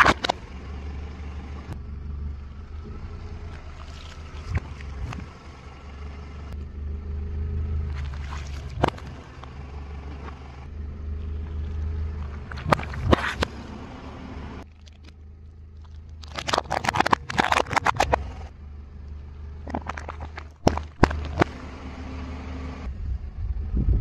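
Car tyre rolling slowly over objects on asphalt and crushing them: a low steady engine and tyre rumble with scattered sharp cracks and crunches of plastic and packaging giving way. The densest run of crackling crunches comes about two-thirds of the way through.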